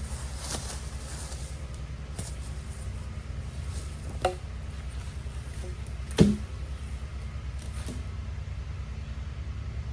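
Two sharp knocks of cut wooden posts striking one another as they are stacked, about two seconds apart, the second louder with a brief ringing tail, over a steady low rumble.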